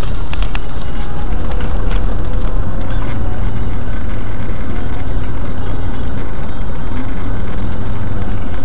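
Car driving, a steady loud rumble of engine and road noise with a few faint clicks.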